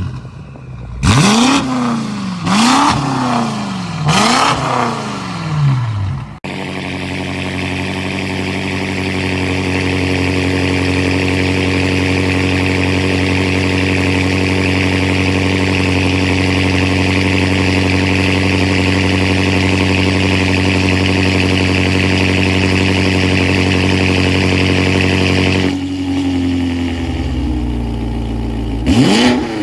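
BMW M5 F90's 4.4-litre twin-turbo V8 through an aftermarket exhaust: three quick free revs, then a long run held at one steady engine speed, settling back to a lower idle near the end with one more sharp rev at the very end.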